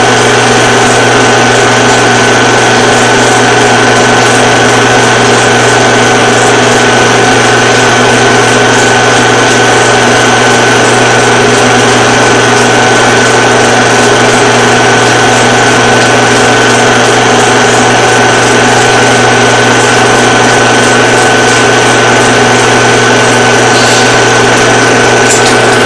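Film projector running: a loud, steady mechanical whir with a low hum and a constant high whine, and a few clicks near the end.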